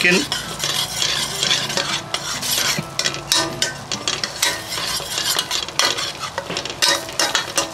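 Long metal spoon stirring and scraping a thick curry mixture around a stainless steel pan, in repeated strokes, while the curry sizzles over the heat.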